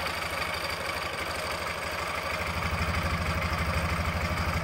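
Ural Troyka's air-cooled boxer twin idling steadily while it warms up, a little louder about halfway through. It has a slight extra clatter that the mechanic puts down to the original Russian timing gears.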